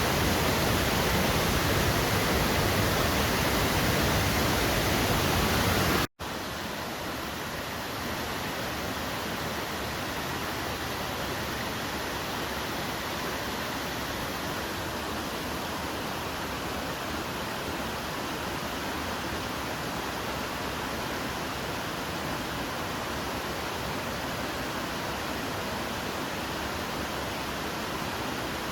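Waterfall rushing steadily. About six seconds in, the sound cuts out for an instant and resumes quieter, with less low rumble.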